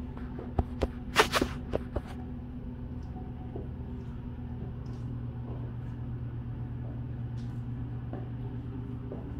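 Steady low hum of room tone, with a quick run of five or so sharp clicks and knocks between about half a second and two seconds in.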